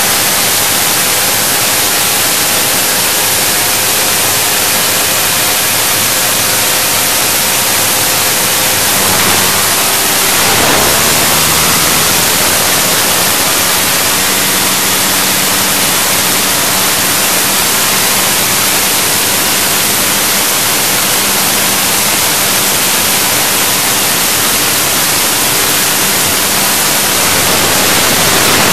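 Wind rushing over a handlebar-mounted phone's microphone on a moving dirt bike, a steady loud hiss, with the bike's engine note faint beneath it; the engine note changes about ten seconds in.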